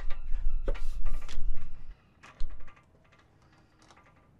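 Handling noise and knocks as the camera is carried up an aluminium step ladder onto a van roof: a low rumble on the microphone with sharp clicks and knocks for about two seconds, one more short knock, then only a few light clicks.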